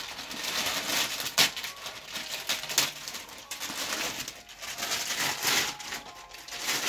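A cardboard product box being worked open by hand, its sleeve and insert rustling and scraping as they are pulled. Two sharp clicks come about a second and a half apart.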